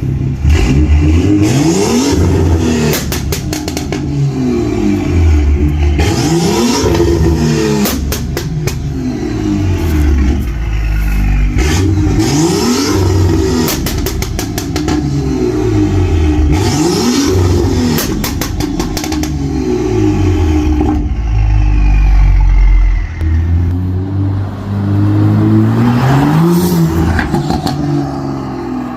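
Tuned 440 bhp BMW M235i's turbocharged 3.0-litre straight-six revved over and over in short blips, one every two to three seconds. As the revs fall, the exhaust gives off rapid pops and crackles from a pop-and-bang map.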